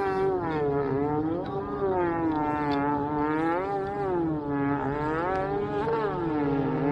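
Motorboat engine running, its pitch wavering up and down every second or so over a steady low hum.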